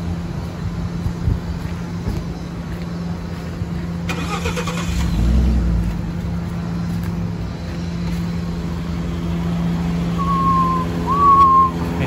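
Pickup truck idling, a steady hum, with a brief low rumble about five seconds in. Two short whistling tones sound near the end.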